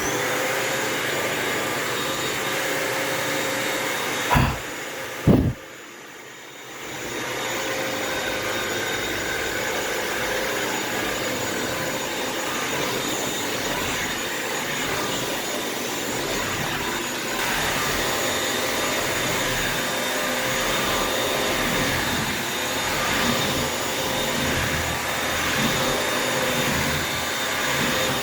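Bissell vacuum-mop floor cleaner running steadily with a whirring hiss. Two sharp knocks about four and five seconds in; the machine then drops quieter for a second or so and builds back up to full running.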